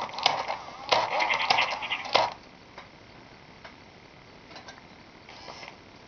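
Interactive plush puppy toy sounding off in a dense burst of about two seconds, streaked with rapid clicks, then only faint scattered clicks from its moving mechanism.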